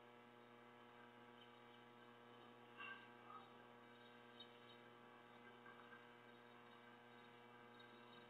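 Near silence: a faint steady electrical hum, with a couple of faint blips about three seconds in.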